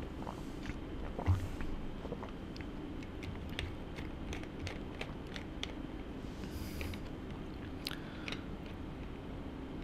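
Quiet room tone: a low steady hum with scattered faint clicks and ticks, and a few brief soft hisses.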